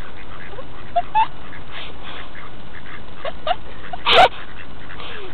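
Mallard ducks quacking in short, scattered calls, with one louder, harsher burst about four seconds in, over a steady hiss.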